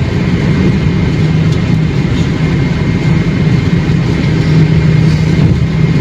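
Steady engine and road drone of a car cruising on a highway, heard from inside the cabin: a constant low hum over an even rush of tyre and wind noise.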